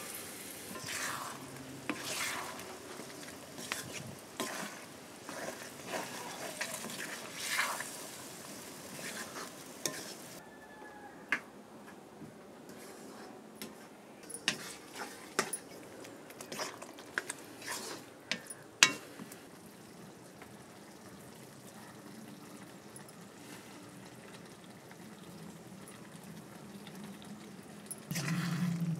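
Soya chunks and onions frying and sizzling in an iron wok over a wood fire, stirred with a metal spoon. Through the middle the spoon knocks and scrapes against the pan in a run of sharp clicks.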